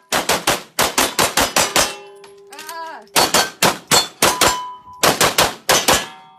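Pistol fired in three fast strings of shots, each string several shots close together with pauses of about a second between strings, and steel targets clanging and ringing as they are hit.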